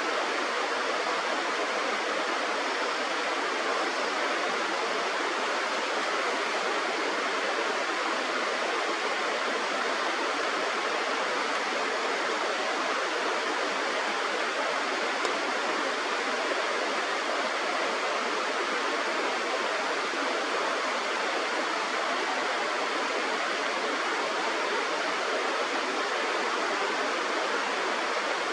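Steady rush of flowing river water, an even, unbroken noise with no change in level.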